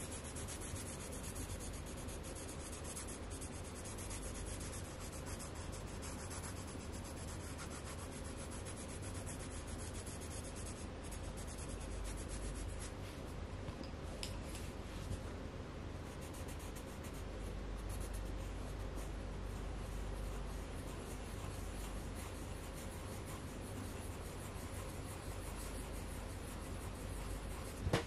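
Coloured pencil rubbing and scratching on paper as a colouring page is shaded in, over a steady low background hum. One short click near the end.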